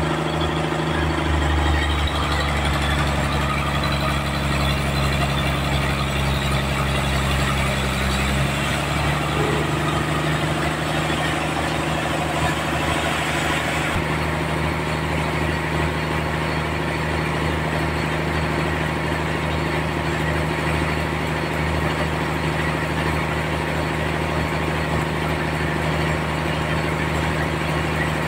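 Sawmill engine running steadily under a band of hiss. Its low note changes about eight seconds in, and the hiss eases off about fourteen seconds in.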